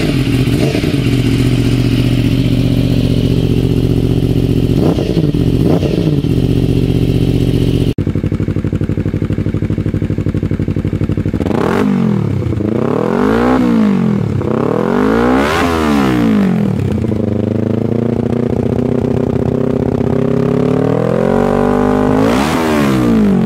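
Motorcycles with Graves Motorsport exhausts, one after the other. First a Yamaha R1's crossplane inline-four idles with two short throttle blips about five and six seconds in. Then a Kawasaki Ninja 300's parallel-twin free-revs at a standstill: three quick revs, then a longer rev climbing steadily and falling back just before the end.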